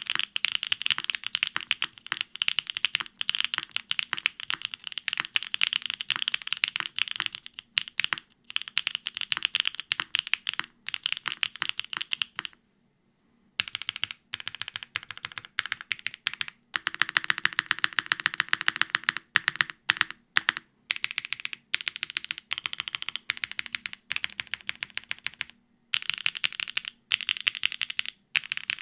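Fast typing on a Neo75 CU mechanical keyboard with Kailh linear switches, a polypropylene plate, gasket mount, no foam and KKB Signet keycaps: quick runs of crisp keystroke clacks broken by short pauses, with one pause of about a second near the middle.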